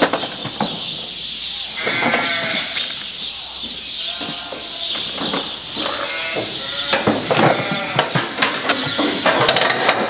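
Sheep bleating, several separate calls in turn, over a steady hiss. Sharp knocks and clanks come thick in the second half.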